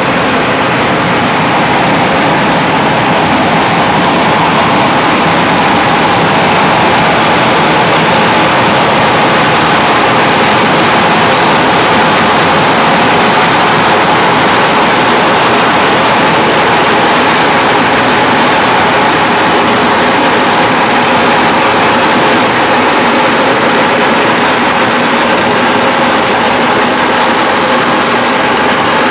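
Long hanging strings of firecrackers going off in one loud, unbroken, dense crackle.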